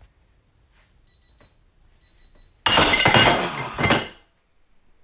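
A Tekton 3/8-inch drive ratchet's anvil shearing under a cheater bar at about 293 ft-lb: a few faint ticks as the load builds, then a sudden loud snap about two and a half seconds in, followed by metal clattering and ringing for about a second and a half.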